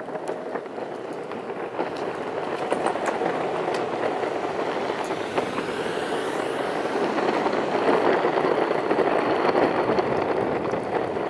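Electric skateboard's wheels rolling over rough, cracked asphalt: a steady rumble with faint clicks here and there, growing a little louder through the middle.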